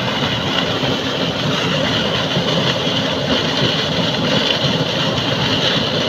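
Heavy stream of water gushing from a large pump's outlet pipe and crashing into the river, a steady rushing roar over the pump's engine running.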